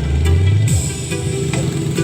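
Loud electronic music with a steady beat, played through a large mobile street sound system. A heavy bass note slides down and cuts off less than a second in.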